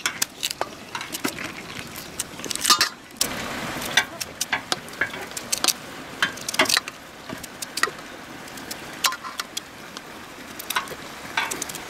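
Knife slicing through a crisp raw root vegetable in quick, irregular cuts, the slices clicking and tapping as they drop into a metal plate.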